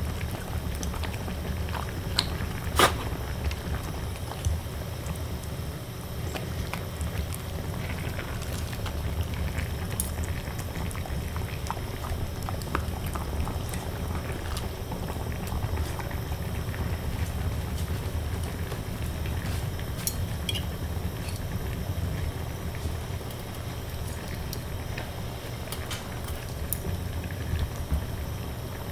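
Steady low bubbling of a pan of salmon heads simmering on a portable burner, with scattered sharp clicks as a Shiba Inu licks and eats salmon scraps from a ceramic plate. The loudest click comes about three seconds in.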